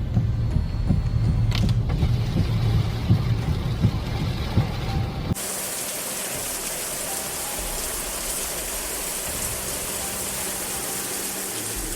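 Storm field audio: a low rumbling with knocks and thumps, cut off suddenly about five seconds in by a steady, even hiss of water.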